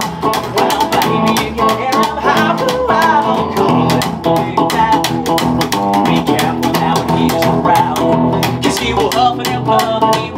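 Instrumental passage of a duo song: an electric guitar plays a lead line with wavering, bending notes over an upright bass keeping a steady beat, with no singing.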